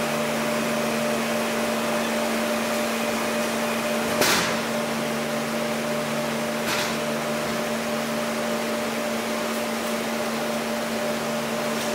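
Scragg mill machinery running with a steady electric hum, with a clunk about four seconds in and a lighter one near seven seconds.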